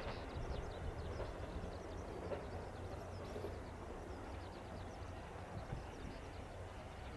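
KiHa 189 series diesel limited-express train heard faintly in the distance as it runs away, a low steady rumble, with short high chirps over it.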